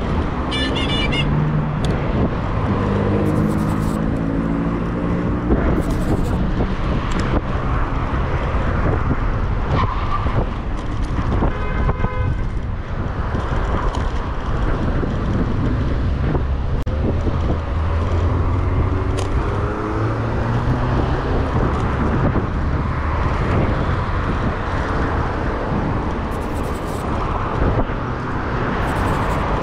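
Road traffic heard from a moving bicycle: cars passing on the adjacent road, their engine and tyre noise rising and falling as they go by, over a steady low rumble.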